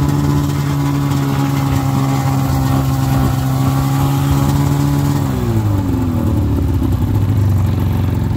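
2000 Polaris 700 snowmobile's two-stroke engine running steadily under way, then its revs falling about five seconds in as the throttle is let off, settling at a lower pitch.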